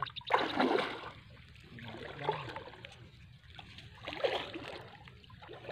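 Shallow muddy water sloshing and splashing in a few short bursts as a fishing net is hauled in by hand. The loudest burst comes right at the start and another about four seconds in.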